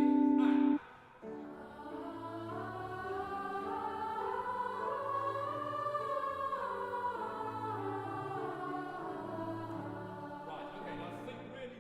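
Music: choir-like voices singing a slow melody over soft low sustained notes, swelling in the middle and fading out near the end.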